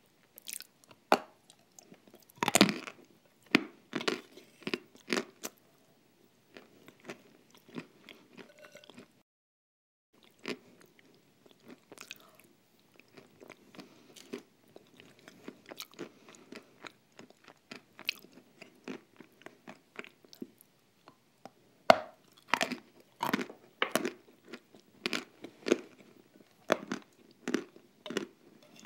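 Close-miked mouth sounds of eating a thick, creamy paste from a spoon: wet smacking and chewing in irregular bursts. There is a short silent gap about nine seconds in.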